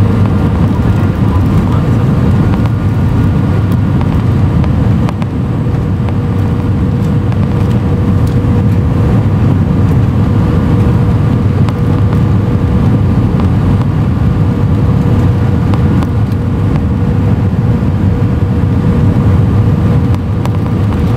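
Cabin noise aboard an Airbus A319 on approach: a steady, loud rumble of engine and airflow noise with a few steady tones over it.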